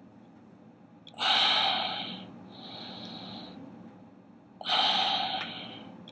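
A man's forceful breaths while straining to hold flexed muscle poses: a hard exhalation about a second in, a fainter breath after it, and another hard exhalation near five seconds.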